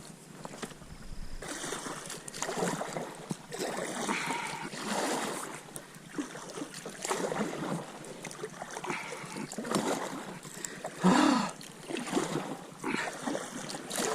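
Kayak paddle strokes through river water: a swishing splash about every second or so.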